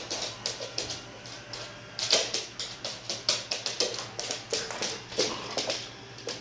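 Two dogs playing rough on a hardwood floor: their claws click and scrabble in quick, irregular taps, several a second.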